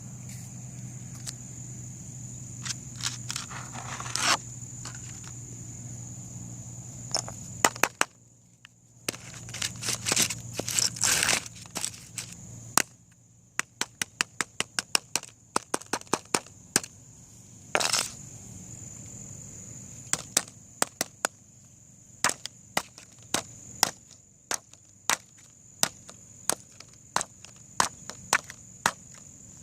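Sharp cracks and snaps of a sound-chip birthday card being smashed and broken apart. They come in irregular clusters at first, then settle to about one or two blows a second, with a thin high whine under much of it and a low hum that stops about eight seconds in.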